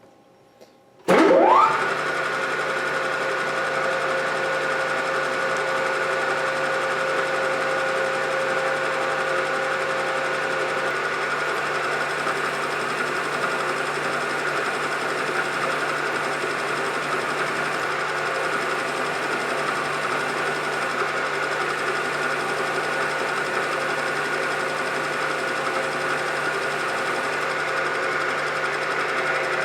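Belt-driven machine tool switched on about a second in, its motor spinning up with a quickly rising whine, then running steadily with a constant whine and mechanical hum at its 664 speed setting.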